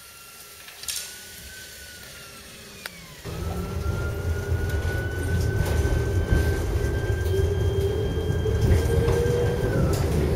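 Tatra articulated electric tram, heard from aboard, pulling away: its traction motors whine and rise slowly in pitch over the rumble of wheels on rail. This starts abruptly about three seconds in, after a quieter opening with a faint whine and one sharp click.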